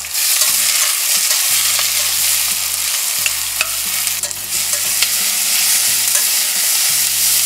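Sliced red onions sizzling in hot oil in a stainless steel pressure-cooker pot while a perforated steel ladle stirs them, with a few clicks and scrapes of the ladle against the pot. The sizzle jumps up in loudness right at the start and stays steady.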